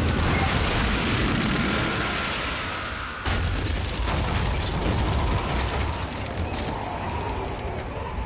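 Anime sound effects of a violent whirlwind blast: a continuous loud rumbling roar that sags, cuts out and surges back sharply about three seconds in.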